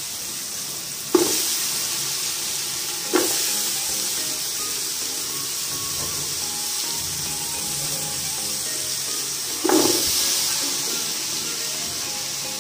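Cubed potatoes and carrots sizzling in hot oil in an aluminium stockpot; the sizzle flares up sharply three times as the vegetables go in and settle, over light background music.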